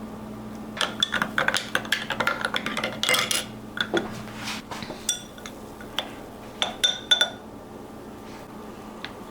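Dishes and cutlery clattering: a quick run of clinks and knocks for two or three seconds, then a few scattered single clinks.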